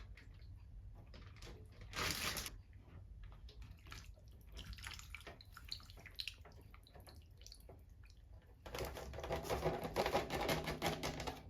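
Scattered clicks and rustles of chicken pieces and marinade being handled into a plastic zip-top bag, with a short hiss about two seconds in. Near the end comes a louder stretch of liquid pouring, lasting about three seconds.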